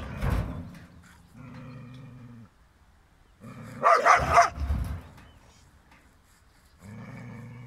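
Dog barking and growling aggressively: a loud bark at the start and a burst of barks about four seconds in, with low, steady growls about a second long in between and near the end.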